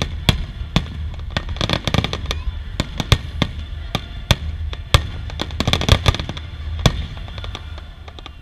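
Aerial fireworks shells bursting in rapid, irregular volleys of sharp bangs over a steady low rumble. The bangs thin out near the end.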